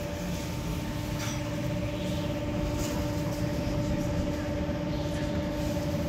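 Hamburg rapid-transit train heard from inside the carriage while running: a steady rumble of wheels on rails with a constant hum from the drive.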